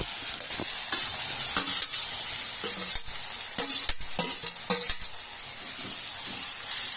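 Hot oil sizzling in an iron kadhai as cumin and asafoetida fry, with a steady hiss. A spatula stirs and scrapes against the iron pan in irregular knocks.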